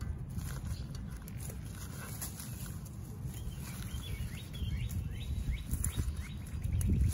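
Gloved hands rustling through leaves and twigs at the base of a flowering quince shrub, with scattered small clicks, over a steady low rumble; the handling grows louder near the end.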